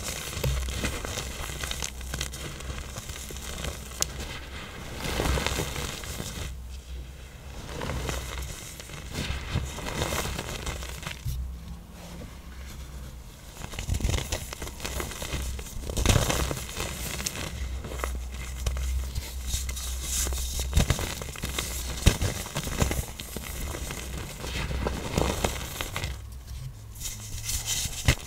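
Blocks of pressed black iron oxide powder being crushed, a dense, irregular run of crunching and crackling as the hard blocks break and crumble to powder, with a few short lulls.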